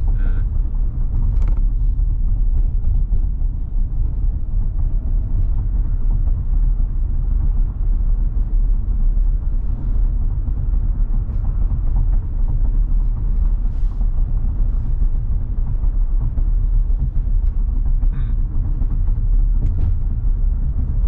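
Steady low rumble of tyre and wind noise inside the cabin of a Tesla Model Y driving in strong wind, with a few faint ticks.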